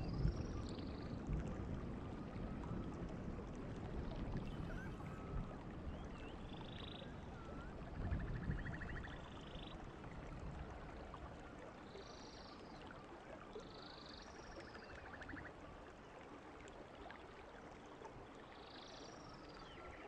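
Dubbed-in animal sound effects: short high chirping calls every few seconds, with two rattling trills about a third and three quarters of the way through, over a faint steady hiss.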